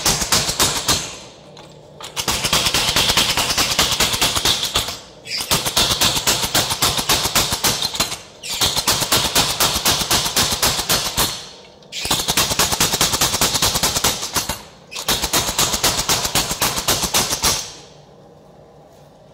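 Power hammer pounding a red-hot steel billet with fast, evenly repeated blows, in six runs of about three seconds each with brief pauses between them. The hammering stops near the end, leaving only a low hum.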